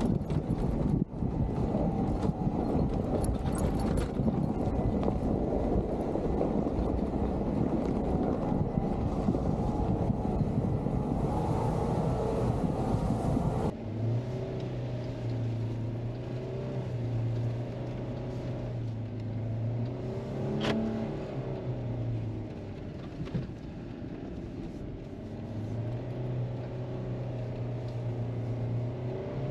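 Jeep JK on 37-inch tires driving through deep snow. For the first half it is heard from outside the vehicle as a loud, dense rush of engine, tires and wind. Just before the middle it changes abruptly to the engine's steady drone heard inside the cab, which swells up and back down about two-thirds of the way in.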